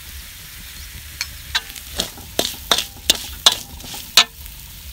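A metal spatula scraping and clanking against a steel wok while stirring a frying spice paste. There are about eight sharp clanks, a few of which leave the wok ringing briefly, over a low sizzle.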